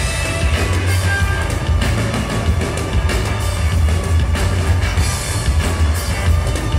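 Live rock band playing loudly, with a drum kit, electric guitars and a heavy, steady bass line.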